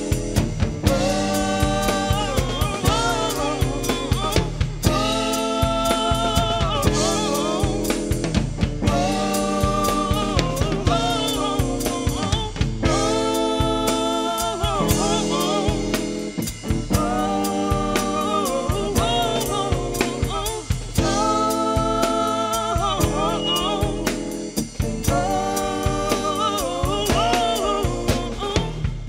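Live blues-soul trio: a woman sings long, held, wavering phrases over a drum kit and electric guitar.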